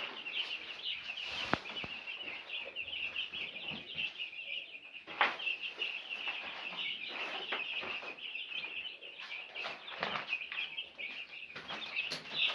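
A brood of four-day-old broiler chicks peeping continuously, many high chirps overlapping, with a sharp click about a second and a half in.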